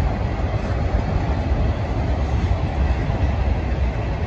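Union Pacific freight train cars rolling past, a steady noise of steel wheels on rail with a heavy low rumble.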